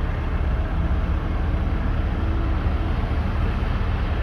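Excavator engine running with a steady low rumble while it digs and loads a dump truck.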